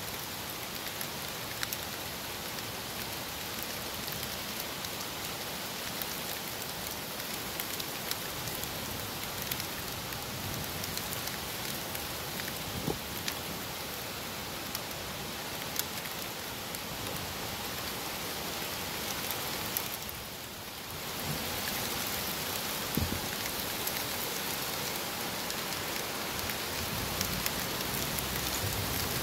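Steady rain falling on leaves and surfaces, with scattered sharp drop hits. It eases briefly about two-thirds of the way through, then comes back a little louder.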